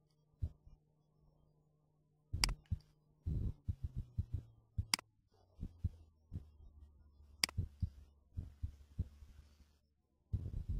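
A computer mouse clicking three times, sharp clicks a couple of seconds apart, among soft irregular low thumps and a steady low hum that drops in pitch about four seconds in.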